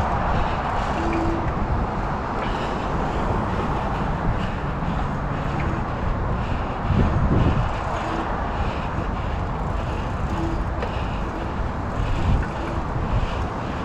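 Steady wind rushing over the microphone while riding a 29-inch bicycle, mixed with the tyres rolling on pavement, with a heavier gust about seven seconds in.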